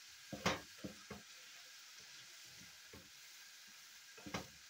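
Pieces of meat in soy sauce sizzling steadily in a non-stick frying pan while a wooden spatula stirs them. The spatula knocks and scrapes against the pan several times, loudest about half a second in and again near the end.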